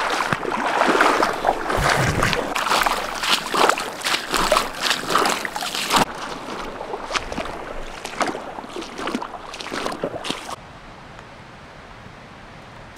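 Feet in trail-running shoes wading through a shallow river crossing, water splashing loudly with each stride. The splashes grow weaker after about six seconds and stop abruptly about ten seconds in, leaving a quieter steady hiss.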